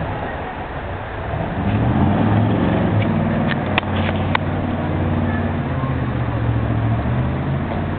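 A vehicle engine running low and steady, growing louder about a second and a half in and then holding. A few sharp clicks sound near the middle.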